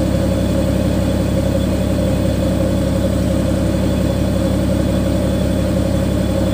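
Heavy-equipment diesel engine running steadily at idle, a constant low drone heard close up in the engine compartment.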